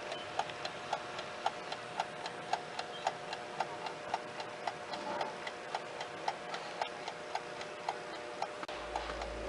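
Vintage Westclox table alarm clock ticking steadily and evenly, about four ticks a second: the clock's movement is running.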